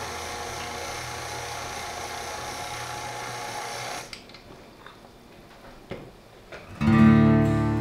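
KitchenAid Classic Plus stand mixer's motor running steadily with a drill-like whine as its flat beater works thick oatmeal cookie dough, then switched off about four seconds in. A few light clicks and knocks follow as the tilt head is raised, and gentle acoustic guitar music comes in loudly near the end.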